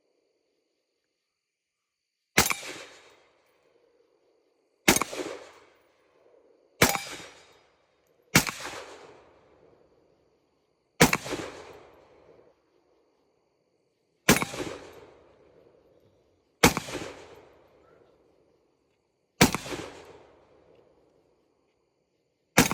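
7.62 AR pistol fired nine times, in single shots spaced irregularly about one and a half to three seconds apart. Each loud crack is followed by an echo that trails off over a second or so.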